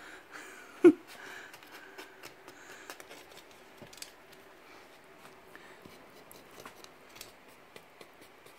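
Faint scattered clicks, taps and scrapes of a cat clambering among the wooden slats of a slatted bed base, with one sharp knock about a second in.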